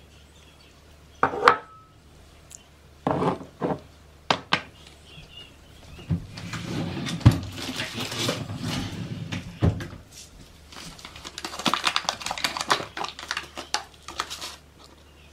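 A metal spoon and glass jars clinking and knocking as chopped kiwi is handled: a sharp ringing clink, then several knocks and a stretch of scraping and shuffling with two harder knocks. Near the end a paper bag rustles and crinkles as it is picked up and opened.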